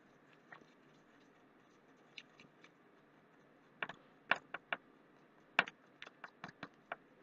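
A toothpick stirring toothpaste in a small container, making irregular light clicks and scrapes that come in quick clusters in the second half.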